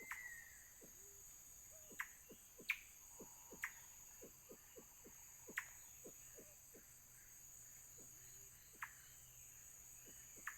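Faint forest insect chorus: a steady high-pitched drone. Over it, short low notes repeat irregularly, and a few sharper, louder descending calls stand out four times.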